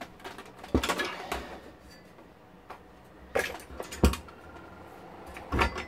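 Open metal chassis of an HP 5328A frequency counter being set down and handled: a handful of knocks and metallic rattles, the loudest about four seconds in.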